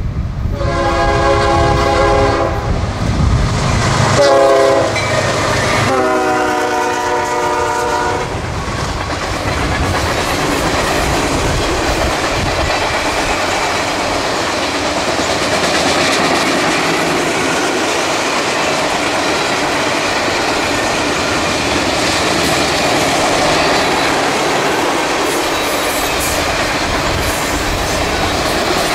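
CSX freight locomotive's horn sounds a long blast, a short one and another long one in the first eight seconds. The train's freight cars then roll steadily past with clattering wheels.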